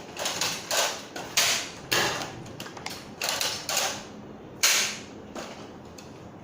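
Nerf foam-dart blasters being primed and fired repeatedly: about eight short, sharp plastic shots over five seconds.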